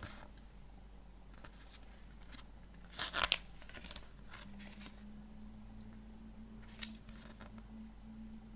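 Paper pages of a CD lyric booklet being handled and turned: a few short, crisp rustles and flicks, the loudest a cluster about three seconds in, over a faint steady hum.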